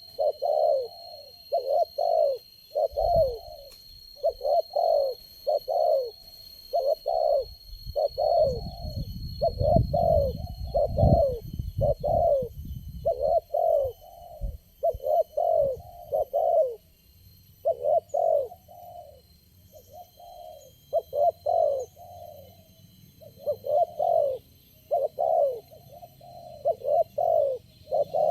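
Spotted doves cooing: short, falling coos in quick groups of two or three, repeated over and over. A low rumble comes in between about 8 and 12 seconds in.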